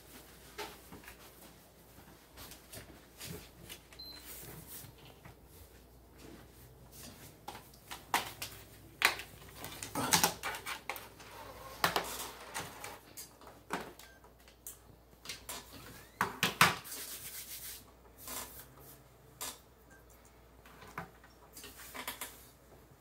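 Scattered clicks, knocks and rubs of objects being handled: a plastic game case opened and a disc loaded into a PlayStation 4 console, with the loudest knocks clustered in the middle.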